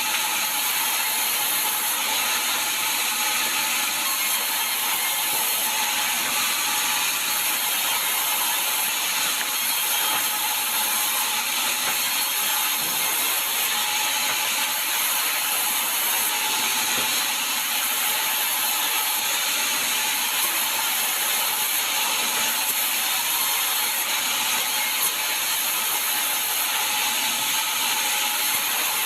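Sawmill saw running steadily as it cuts sengon logs: a loud, unbroken mechanical noise with a steady whine over it.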